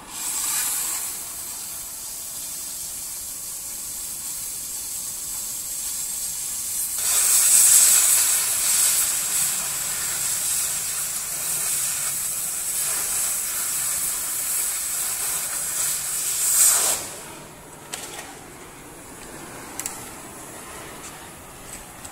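Oxygen–LPG cutting torch hissing steadily as its flame preheats a steel beam. About seven seconds in, the hiss turns much louder as the cutting-oxygen jet is opened and blows through the steel. It drops back sharply to a quieter flame hiss about five seconds before the end.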